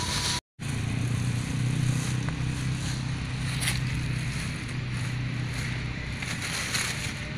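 A steady low engine hum, easing off slightly near the end, after a brief dropout about half a second in, with a couple of faint brief clicks over it.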